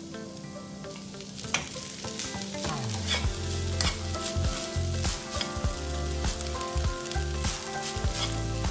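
A spoon stirring and scraping cooked basmati rice through a sautéed pea-and-onion mix in a hot nonstick pan, with light sizzling and repeated scrapes and knocks on the pan.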